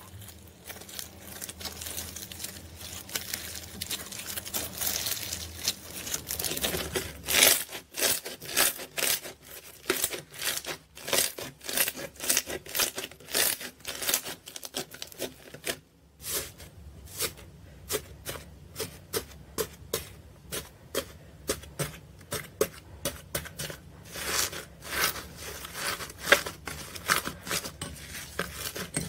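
Hands squeezing and kneading slime, making rapid, irregular crackling and popping clicks as air pockets and foam beads in the slime are pressed, with a brief pause about halfway through.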